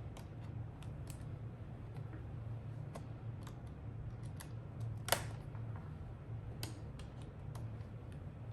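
Small plastic clicks and ticks as a laptop's plastic bottom cover is pried and worked at its snap clips, with one louder sharp click about five seconds in.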